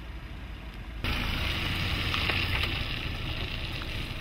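Nissan X-Trail 1.6 dCi SUV creeping along a grass-and-gravel embankment: a steady rushing noise of tyres over the rough ground with low engine rumble beneath and a few faint clicks, louder from about a second in.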